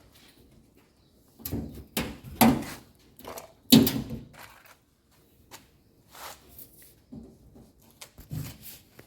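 A dryer's metal top cover being fitted and pressed down into its locks: a string of irregular knocks and thuds, the loudest about four seconds in.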